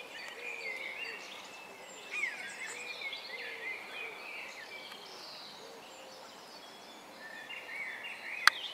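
Small birds singing and chirping, many short calls overlapping. Near the end there is a single sharp click.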